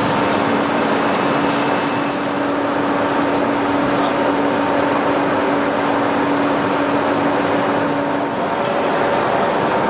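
Pama large boring and milling machine running, its cutter turning inside the bore of a big valve body: a steady mechanical whir and hiss, with a low hum that drops out about eight seconds in.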